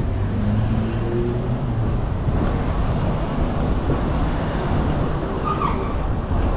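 Steady low rumble of road traffic, with an engine hum in the first couple of seconds.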